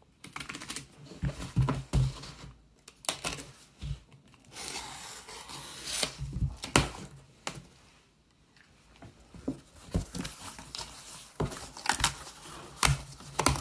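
Plastic packing tape being peeled and ripped off a cardboard mailer, with the cardboard flaps creasing and knocking as they are pulled open. The ripping comes in short spells with sharp knocks, and there is a quieter pause about eight seconds in.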